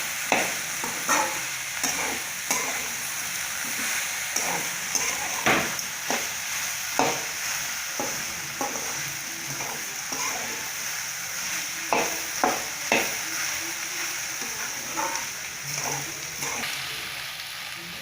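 Chopped okra and onion sizzling in hot oil in a pan, sautéed dry with salt and turmeric, while a utensil stirs it, knocking and scraping against the pan irregularly about once a second. The sizzle gets quieter near the end.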